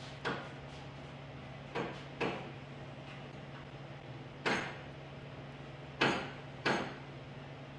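Six sharp knocks, some in quick pairs, each with a short ring, over a steady low hum.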